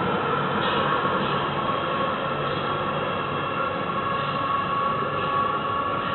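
Civia electric multiple-unit commuter train running out of the station, with a steady mechanical hum and a steady high whine from the train, easing off slightly near the end.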